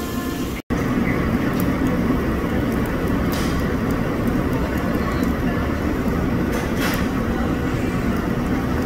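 Steady low rumbling noise at a tabletop yakiniku grill with chicken cooking on it, with a brief cut to silence under a second in.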